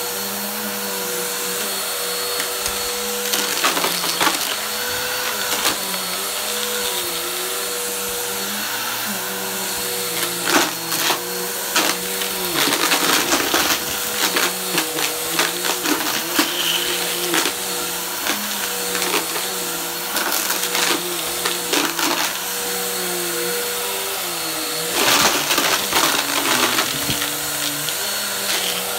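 Bissell upright vacuum cleaner running over carpet, its motor tone wavering as it is pushed back and forth. Bursts of rattling clicks and crunching come as it sucks up small hard debris, busiest a third of the way in and again near the end.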